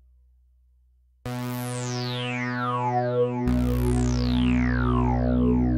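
TAL-NoiseMaker software synthesizer: after a faint fading tail, a sustained note starts abruptly about a second in. Its bright upper tones slide steadily down in pitch, like a resonant filter sweep closing. A lower note joins past halfway through and starts a second downward sweep.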